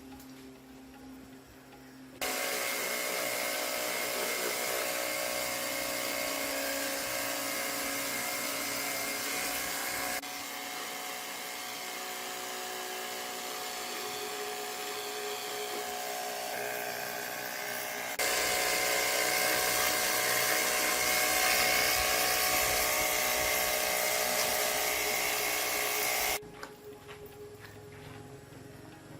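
A power tool running steadily with a high whine, in three stretches joined by abrupt cuts. Quieter ticking background music comes before and after.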